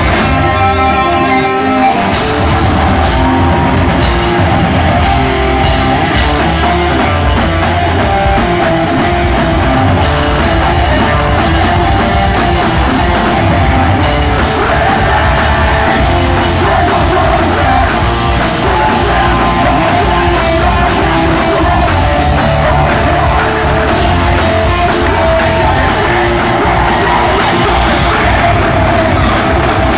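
A metal band playing live and loud: distorted electric guitars, bass and a drum kit, with shouted vocals. A guitar plays briefly on its own at the start before the full band comes in about two seconds in.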